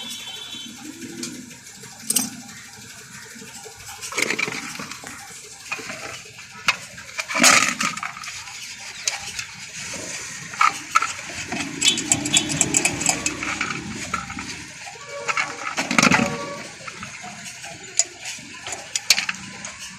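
Metal brake parts and tools clinking and knocking together as they are handled, with several sharper knocks spread through and a rougher, noisier stretch near the middle.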